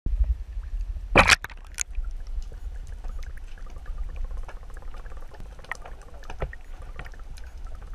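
Splash as a waterproof-housed GoPro goes under the sea surface about a second in. It is followed by muffled underwater sound: a low rumble with scattered faint clicks.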